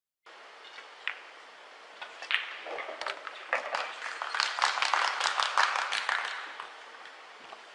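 Scattered applause in a hall, swelling over a few seconds and dying away, with a single sharp click about a second in.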